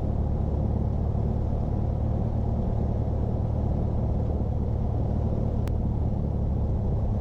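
Cessna 172S's four-cylinder Lycoming IO-360 engine and propeller running at low power while taxiing, heard as a steady drone inside the cabin. A single short click about six seconds in.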